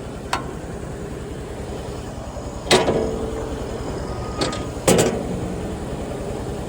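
Fabricated aluminum loader door swung on its welded hinges, knocking twice against the frame with a short metallic ring and a lighter knock just before the second, over a steady engine hum.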